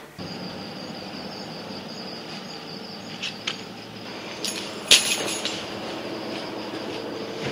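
Steady high chirring of night insects, with a few sharp taps in the middle, the loudest about five seconds in.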